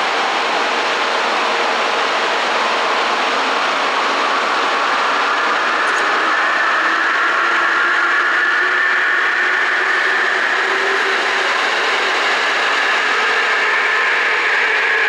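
JR Kyushu 787 series electric train running past on the rails as it pulls out of the station, a steady rushing noise with a high motor whine that comes in about five seconds in and rises slightly in pitch.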